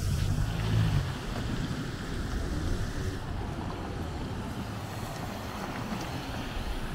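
City street traffic: a steady wash of passing vehicles, with a low engine hum in the first second.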